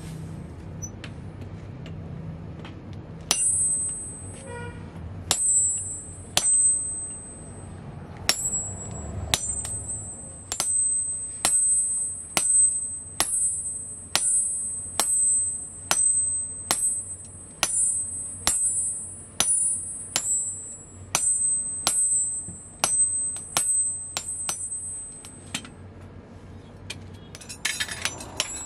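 Sledgehammer blows on a handled steel punch driving the eye through a red-hot adze head on the anvil. Each blow is a sharp metallic clang with a high, bell-like ring, about one and a half blows a second, starting a few seconds in and stopping a couple of seconds before the end.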